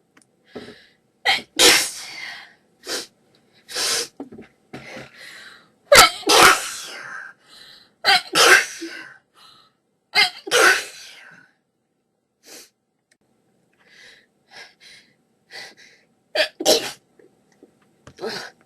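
A person in a sneezing fit, sneezing again and again, several sneezes coming in quick pairs. After a quieter stretch with faint breaths in the middle, two more sneezes come close together near the end, then one more.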